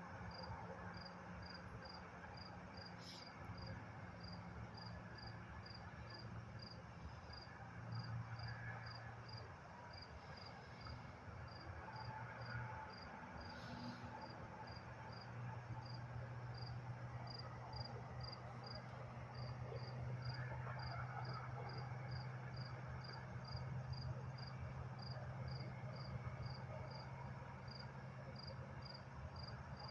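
Night insect chirping at an even pace, about two short high chirps a second, over a low steady hum.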